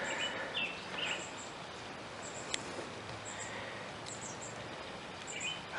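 Quiet outdoor background with small birds chirping, short high chirps repeating now and then, and a single sharp click about two and a half seconds in.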